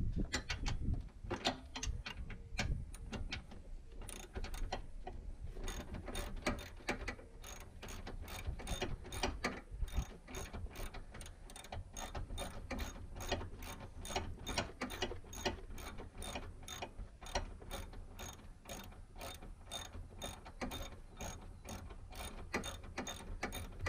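Hand socket ratchet clicking as a bolt on the transmission mount bracket is worked loose. The clicks are uneven at first, then settle into a steady run of about three a second.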